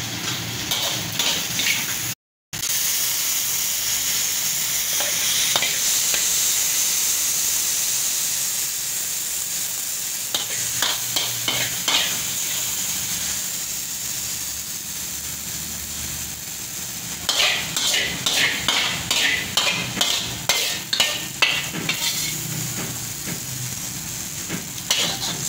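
Food sizzling in a wok with a steady hiss, while a metal ladle scrapes and clacks in quick runs, busiest in the last third.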